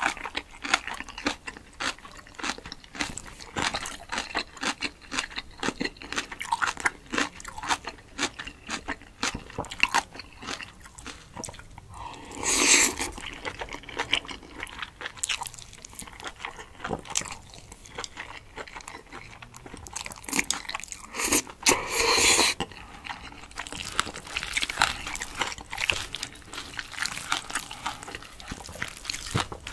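Close-miked eating of spicy cold noodles: steady wet chewing and mouth clicks, with two longer, louder slurps of noodles, one near the middle and one about two-thirds of the way through.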